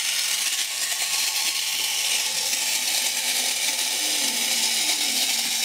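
Clockwork motor of a vintage wind-up Sparkling Robot toy running down with a steady whirring, its flint sparker grinding as the robot walks.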